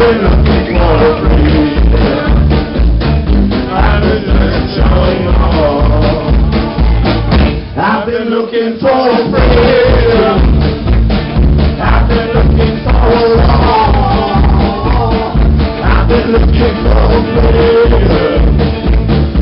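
Live band playing a country song with singing over a steady bass and drum beat; the bass and drums drop out for about a second around eight seconds in, then come back.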